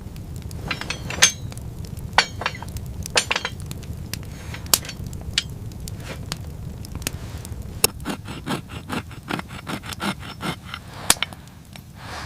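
Irregular sharp clicks and knocks, like hard objects being handled or struck, over a steady low rumble; a quicker run of taps comes about two-thirds of the way in.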